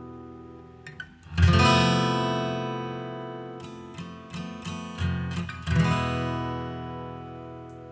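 Background music: an acoustic guitar strumming a chord about a second and a half in and another near the end, each left to ring and fade, with a few picked notes between.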